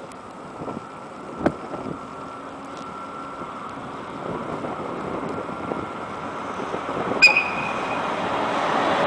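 EF81 AC/DC electric locomotive hauling a freight train on its approach, its running noise growing steadily louder as it draws near. A sharp click about a second and a half in, and a brief high tone about seven seconds in.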